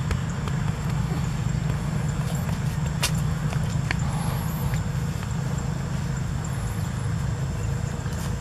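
Wind buffeting the microphone in an open field, a steady low rumble that rises and falls in level, with a couple of sharp clicks about three and four seconds in and faint high chirps.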